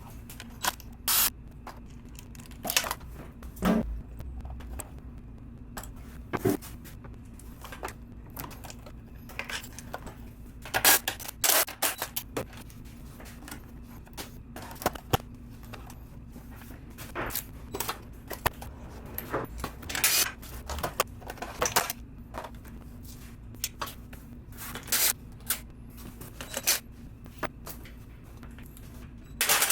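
Wrenches, bolts and metal parts clinking, clattering and scraping in irregular short bursts as a motorcycle is taken apart, over a steady low hum.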